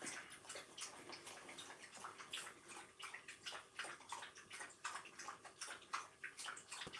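Faint, irregular rustling with many small crackles and clicks, several a second, from hands unwrapping and handling small items.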